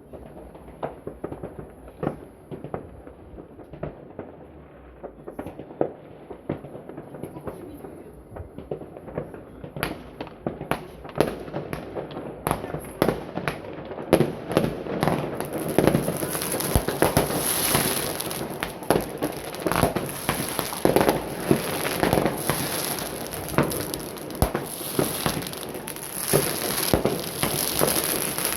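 Many fireworks going off at once: scattered bangs and pops that thicken about ten seconds in and build into a dense, continuous crackle of bursts.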